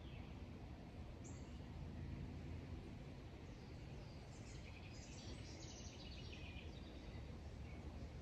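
Faint outdoor ambience: a steady low hum with small birds chirping, one short chirp about a second in and a busier run of chirps around the middle.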